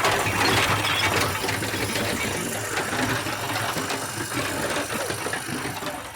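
Broken stone pieces clattering and grinding against each other in a rotating tumbling drum, over a steady motor hum; the stones are being tumbled with water to round off their rough broken edges. The clatter eases off a little near the end.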